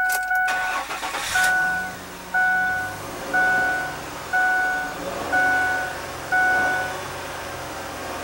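A 2006 Ford F-150's 4.2-litre V6 cranks and starts about a second in, then idles steadily. The dashboard warning chime, sounding steadily at first, stops at the start and then dings six times, about once a second.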